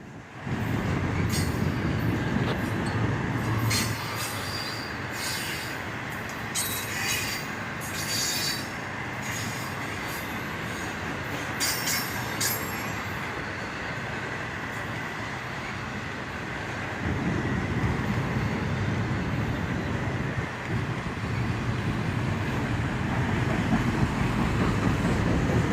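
Loaded autorack freight cars rolling past, their wheels squealing in short high bursts over the first half over a steady rumble of the train, which grows louder about two-thirds of the way through.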